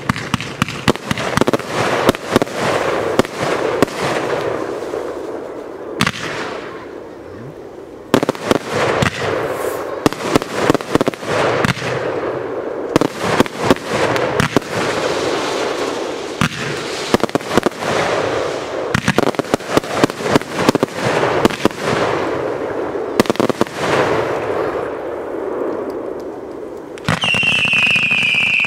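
Fireworks display: dense, rapid crackling and popping of bursting shells and cracklers, easing briefly twice. Near the end a loud whistle starts suddenly and falls slightly in pitch as whistling ground fireworks shoot up sparks.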